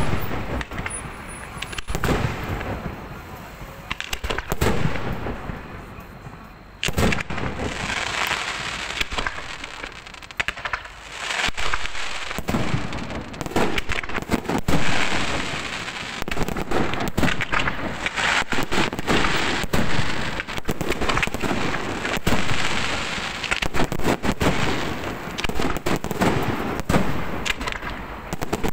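Fireworks display: aerial shells banging in rapid, irregular succession. From about seven seconds in, a dense crackling hiss runs continuously under the bangs.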